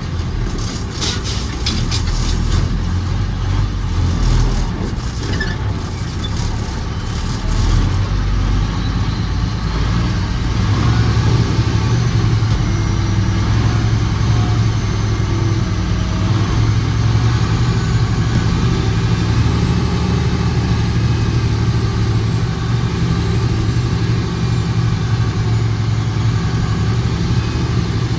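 Autocar truck's engine running steadily, with a string of sharp rattling clicks through the first eight seconds or so.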